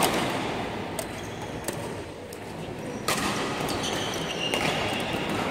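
Badminton rackets striking shuttlecocks: about five sharp smacks spaced roughly a second apart, mixed with brief high squeaks of shoes on the court floor.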